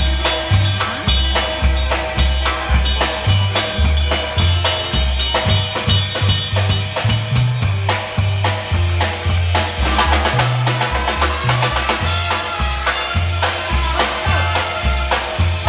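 Polka band playing live through PA speakers, with a bass line stepping between notes on the beat under a drum kit's bass drum and snare, and melody instruments above in a steady polka rhythm.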